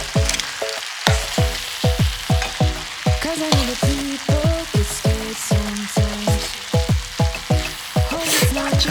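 Background music with a steady beat of deep kick drums that drop in pitch and a synth melody, over food sizzling in a frying pan.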